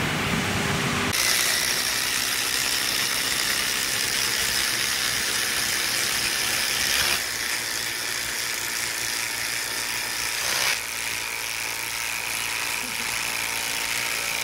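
For about the first second, wood-processing line machinery running. Then cordless impact drivers whine and rattle as they drive long screws into a wooden tree stump. The sound drops a step about seven seconds in and again near eleven seconds, leaving a single Makita impact driver.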